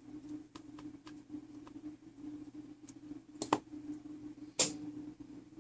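Small metal clock-movement parts and tools being handled during reassembly: a few faint clicks, then two sharper metallic clicks about three and a half and four and a half seconds in, over a steady low hum.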